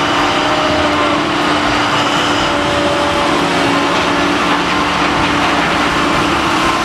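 Heavy diesel engines of a hydraulic mining excavator and a large mining haul truck running under load, a loud steady drone with a few held tones.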